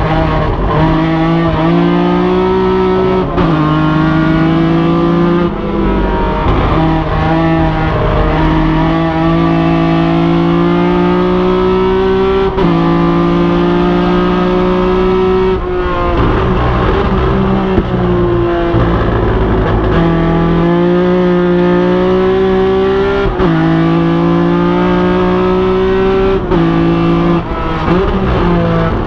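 BMW 3.0 CSL race car's straight-six engine at racing speed, heard from inside the cockpit. The engine note climbs through each gear and drops sharply at every shift or lift, about half a dozen times.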